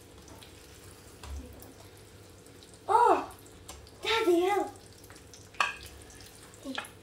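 Eggs frying in a pan with a steady sizzle. Over it come two short wordless vocal exclamations with bending pitch, about three and four seconds in, and a single sharp clink, likely a utensil on the pan, near the end.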